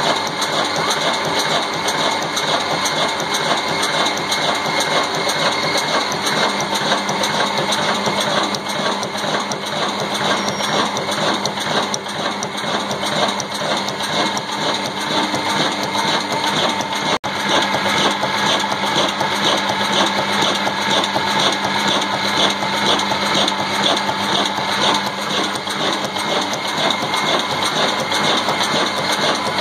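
Old Ruston Hornsby stationary diesel engine running steadily with an even, rhythmic clatter. There is a momentary break a little past halfway.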